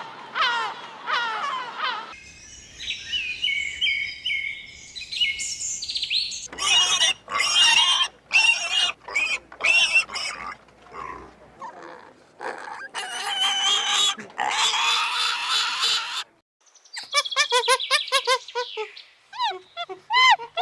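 A string of different animal calls, one recording cut to the next, with rapid bird chirping at the start and again near the end.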